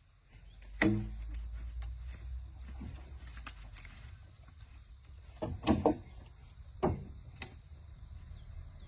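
A few sharp knocks and clanks, like metal parts or tools being handled: a loud one about a second in, then several more close together later on, over a low steady hum.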